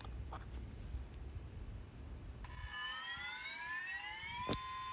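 Electric whine from the RC crawler's motor and drivetrain, rising in pitch for about two seconds as it speeds up, then settling into a steady high tone after a click.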